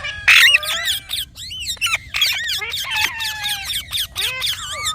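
Ringneck parrot (rose-ringed parakeet) chattering: a rapid string of high, sliding whistled notes and shrill squawks with sharp clicks between them.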